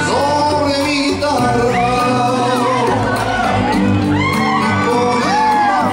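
Rumba dance music with a singer, playing over a hall's sound system, with scattered shouts from the crowd.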